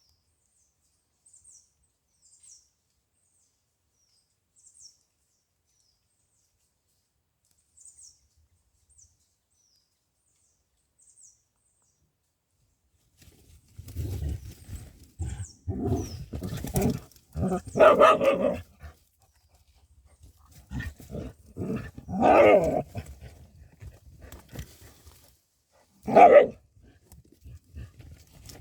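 Faint high chirps for the first dozen seconds, then a dog barking and growling amid scuffling noise in a fight with a badger. The loudest calls come in three bursts toward the middle and near the end.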